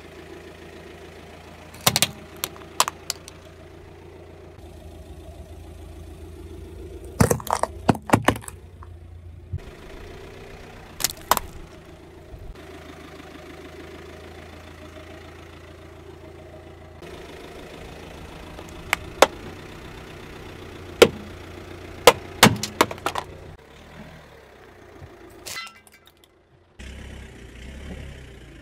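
Car idling with a steady low engine hum while its tire rolls over a series of objects on asphalt, among them a pair of plastic sunglasses; sharp cracks and snaps come in short clusters at several points as brittle items break under the tire.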